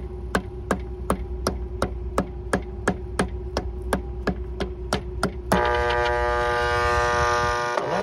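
Energized Dayton 1/3 hp belt-drive fan motor humming without turning, locked up, which the technician puts down to a bad start winding. For the first five seconds sharp hammer taps on the motor come about three a second; about five and a half seconds in, the hum turns into a louder, harsher buzz while the clamp meter reads 9.6 amps against the 6.6 amp rating.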